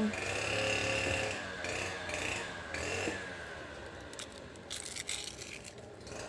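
A steady motor hum with a held high tone that cuts in and out over the first three seconds, then fades. From about four seconds in, light crackling and clicks of a fresh banana leaf being pinched and handled.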